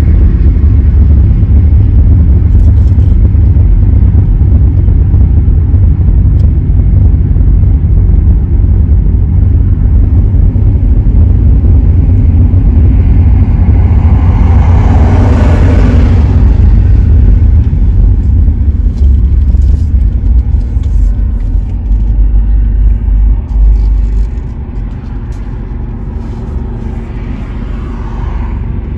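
Steady low road and engine rumble heard inside a car driving at highway speed, with a rushing swell that rises and fades about halfway through. Near the end the rumble drops noticeably quieter as the car slows down.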